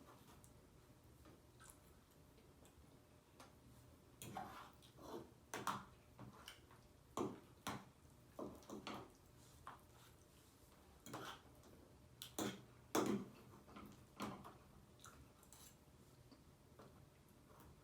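Eating sounds from a person eating vegan lasagna: chewing and lip smacks in irregular short bursts, quiet between them.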